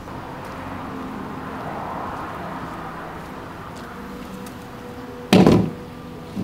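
Steady outdoor background noise, with one short, loud clatter about five seconds in.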